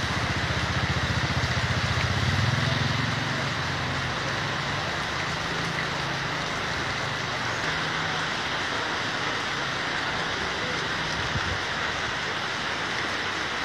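Heavy rain with strong wind, a steady hiss of downpour. A low rumble of wind on the microphone in the first few seconds, easing off after that.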